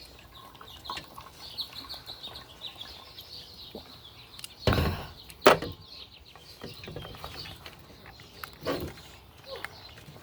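Birds chirping in the background, with a few sharp knocks about halfway through.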